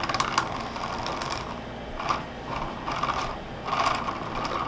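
3D-printed plastic charkha turned by hand to spin cotton: the drive wheel, pulley and spindle whir and rattle, the rattle swelling about once a second.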